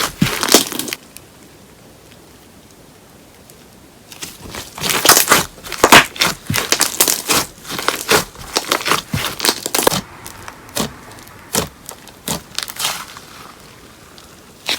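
Paper-clay slime being squeezed and worked by hand, giving bursts of crackling and popping clicks. The crackling stops about a second in, comes back densely about three seconds later, and thins to scattered pops in the last few seconds.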